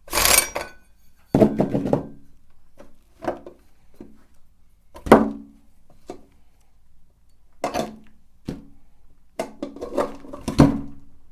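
A series of separate knocks and clunks from hard objects being handled, each with a short ring, irregularly spaced, with a cluster of them near the end.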